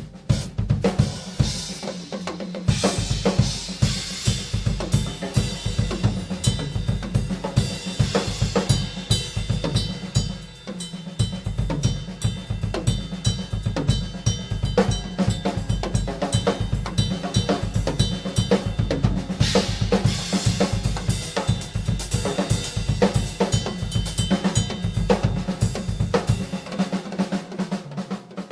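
Tama Starclassic Bubinga Elite drum kit played in a dense, fast groove: bass drum, snare, hi-hat and cymbals. The bass drum drops out briefly about two seconds in, again around eleven seconds, and near the end.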